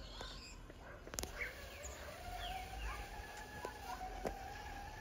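A distant motor vehicle's engine, a steady hum that starts about a second in, rises slightly in pitch and then drops away.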